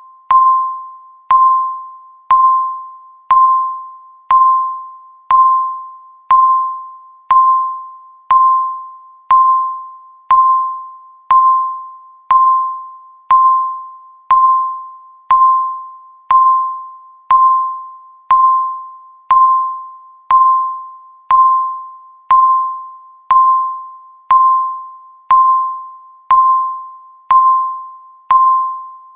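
Electronic countdown-timer tick: a short, bell-like ping that fades quickly, repeating evenly once a second, each marking one second of the count.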